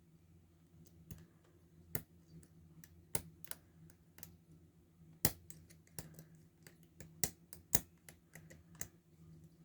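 Irregular small, sharp metal clicks and taps of lock picks, tension tool and handcuffs against a Paclock 90A Pro padlock during handcuffed picking, the loudest about five seconds in and twice near the end, over a faint steady low hum.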